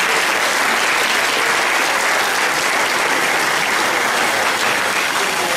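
Audience applauding, a steady dense clapping that holds at an even level throughout.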